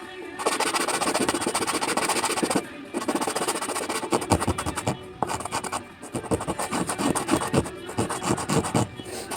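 Sandpaper rasping against cedar wood in runs of rubbing strokes broken by short pauses, with background music.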